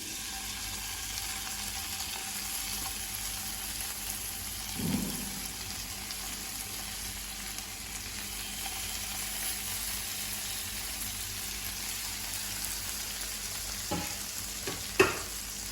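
Marinated boneless chicken pieces sizzling as they fry in melted butter in a kadai, a steady hiss. A few brief knocks come about five seconds in and twice near the end.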